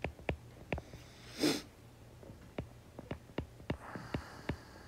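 Stylus tip ticking on a tablet's glass screen while handwriting, irregular sharp taps a few tenths of a second apart, with a short sniff about one and a half seconds in.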